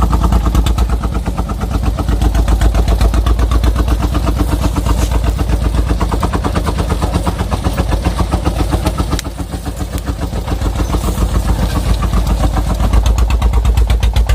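Single-cylinder Dong Feng diesel engine of a homemade truck chugging under way with a rapid, even thumping beat. It eases off briefly about nine seconds in, then picks up again.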